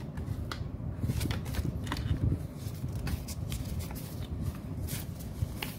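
Malaysian ringgit banknotes being counted by hand: paper rustling and flicking, with scattered crisp snaps of single notes over a low, muffled handling rumble.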